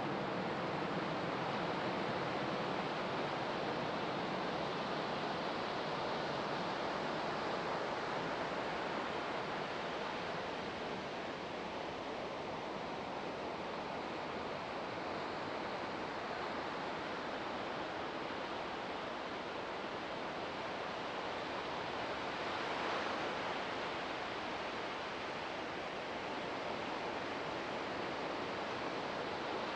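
Ocean surf: waves breaking and washing up the beach in a steady, even rush, with one wave swelling a little louder about three-quarters of the way through.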